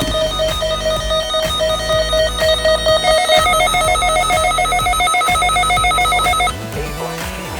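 Weather radio receiver sounding its alert alarm: a loud electronic tone beeping several times a second. It steps slightly higher in pitch about three seconds in and cuts off about six and a half seconds in.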